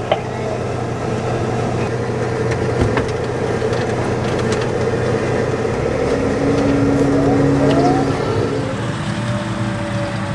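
A vehicle engine running steadily. Its tone shifts about six seconds in and again near nine seconds.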